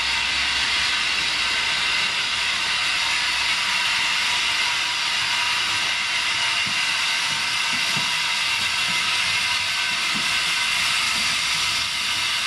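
Steam locomotive hissing steam loudly and steadily.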